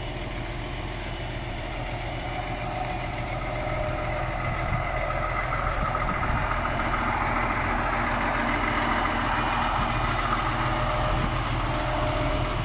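Peterbilt semi tractor's diesel engine idling with a steady low rumble, growing slightly louder about four seconds in.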